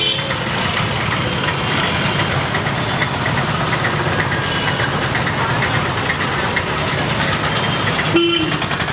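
Street traffic: motor vehicle engines running steadily, with a brief horn toot near the end.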